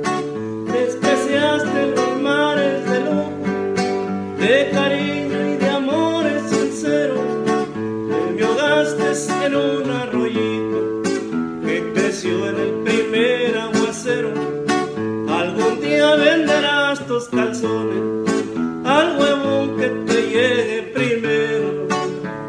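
A man singing a Spanish-language song while strumming his own acoustic guitar.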